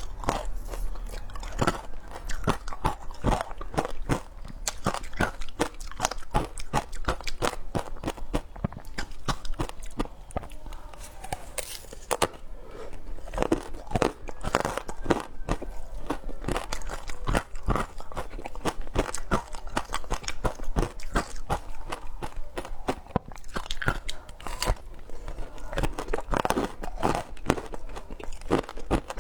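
Frozen passion fruit ice being bitten and chewed close to the microphone: a steady run of irregular crunches and crackles as the ice cracks between the teeth.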